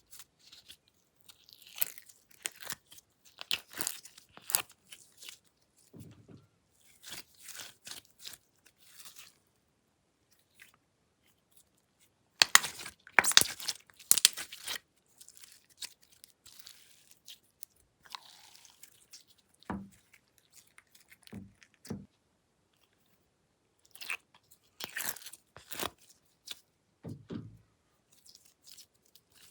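Glossy slime being squeezed and worked by hand, giving bursts of crackly, sticky pops and clicks with short pauses between them. The loudest burst comes about halfway through.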